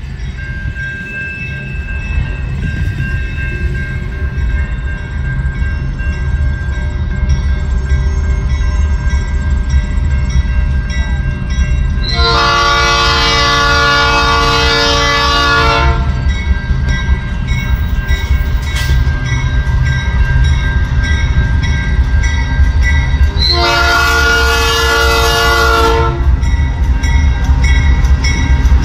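Canadian National freight train led by diesel locomotive CN 2669 approaching, its engine and wheel rumble growing louder over the first dozen seconds. The locomotive's horn sounds a long blast about twelve seconds in and a shorter blast about ten seconds later.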